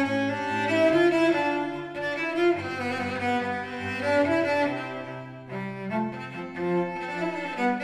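Background music of bowed strings playing slow, long held notes.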